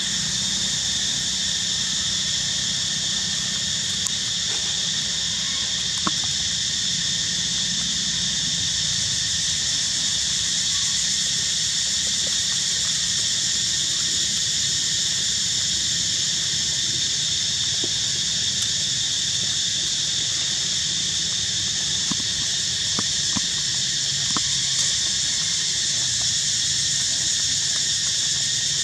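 Steady, high-pitched drone of insects calling in chorus, with a low steady hum beneath and a few faint clicks.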